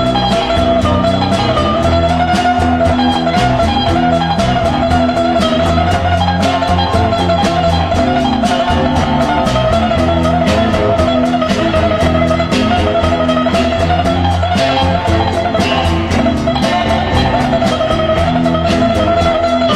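Instrumental break of a song: guitar playing over bass and drums with a steady beat.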